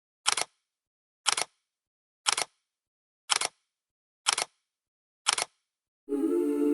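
Camera shutter clicking six times, about once a second, each a quick double click. Music begins near the end.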